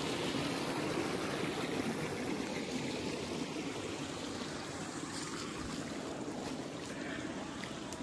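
Small creek babbling over a shallow riffle, a steady rush of running water that grows slightly fainter toward the end.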